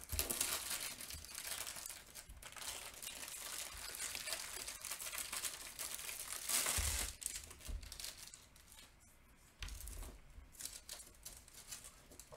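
Clear plastic wrapping crinkling and rustling as hands turn and unwrap a rolled diamond painting canvas. It is loudest a little past halfway, then pauses briefly before more crinkling near the end.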